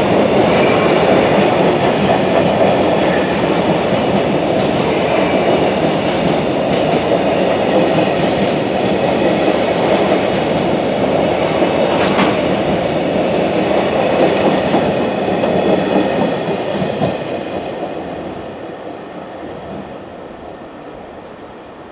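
Container freight train running past on the main line: the wheels of the container wagons rumble and clatter over the rails, with a few sharp clacks. The sound fades away over the last few seconds as the end of the train passes and draws off.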